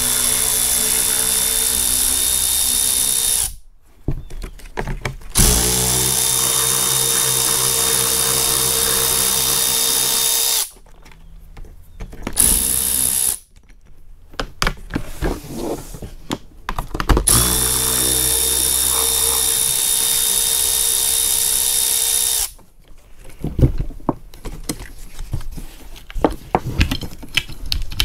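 Milwaukee cordless ratchet running steadily in three long runs of several seconds each, backing out the screws of a car's quarter-window trim frame. Near the end there are light knocks and clicks as the loose trim parts are handled.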